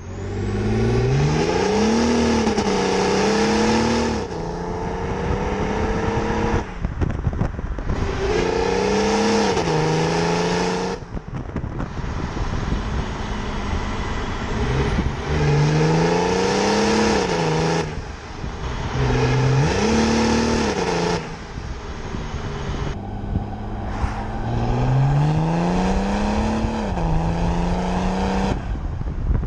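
Stage-two tuned BMW 335d estate's 3.0-litre twin-turbo straight-six diesel accelerating hard, about five times over. Each time the revs climb, then drop back at an upshift. Wind and road noise run underneath.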